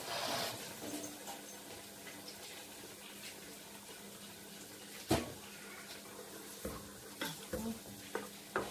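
Faint steady hiss from a pot steaming on a lit gas hob, with a low hum under it. A sharp knock about five seconds in and a few lighter clicks near the end, as a container and hand work at the pot.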